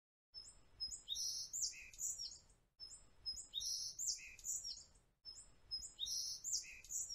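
Birdsong sound effect on a loop: the same short phrase of high chirps and whistles, starting about a third of a second in and repeating about every two and a half seconds.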